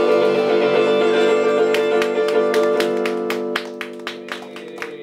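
Live band with electric guitars and bass playing: a held chord that slowly fades, with a quick run of short, sharp hits over it from about two seconds in.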